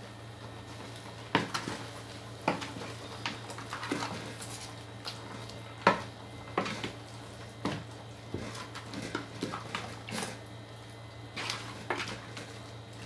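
Wooden spatula stirring chicken and vegetables in sauce in a large aluminium pot, knocking and scraping against the pot at irregular intervals, the loudest knock about six seconds in. A steady low hum sits underneath.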